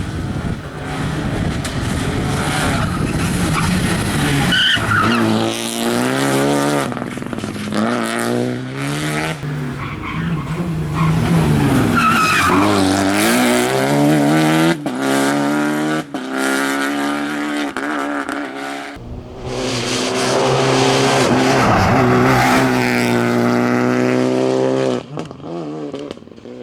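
Rally cars running hard on a closed stage: engines revving with pitch climbing and dropping through gear changes, sharp cuts and pops on the shifts, and tyres squealing. The sound breaks off abruptly about 19 seconds in, then another loud run follows.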